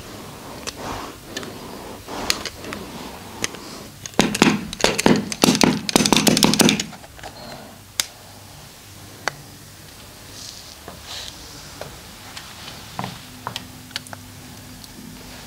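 Massage percussion: scattered taps, then a fast run of hands slapping and striking on the body for about two and a half seconds, followed by more light taps. A faint steady hum comes in near the end.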